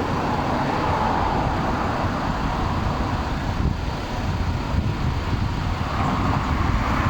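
Steady low background rumble with a hiss over it, with no bird calls standing out.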